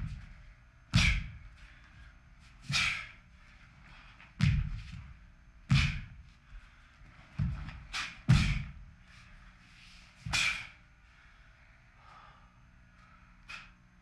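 A series of sharp snaps and thumps from a taekwondo pattern being performed: the uniform cracking with each fast strike and kick, and feet stamping and landing on the floor, including the landing from a jump. About nine hits come a second or two apart, then it goes quieter near the end.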